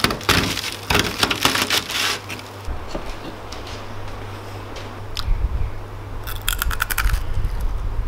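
Knife cutting through a charred, crusty chicken breast on baking paper: a run of crunching and crackling in the first two seconds, then another quick burst of crunching shortly before the end, over a steady low hum.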